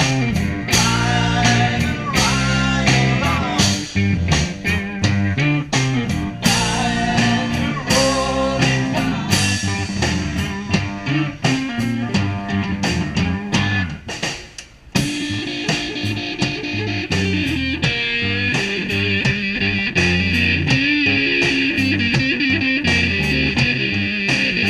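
Rock music with guitar and drums, with a brief drop-out about two-thirds of the way through, after which it comes back fuller and brighter.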